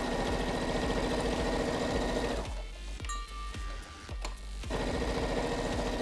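Brother ST150HDH heavy-duty sewing machine stitching through a thick stack of seven, then eight, layers of cotton duck. It runs in two fast, even bursts with a pause of about two seconds between them, and a few clicks in the pause.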